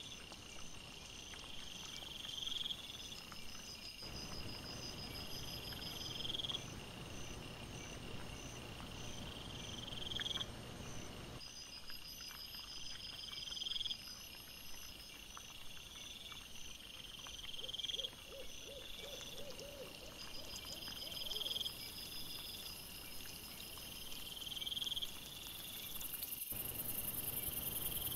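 Night insects calling: a high-pitched trill that swells over a second or two and stops abruptly, repeating about every four seconds, with a fainter, faster dotted trill above it and a low rustling noise underneath.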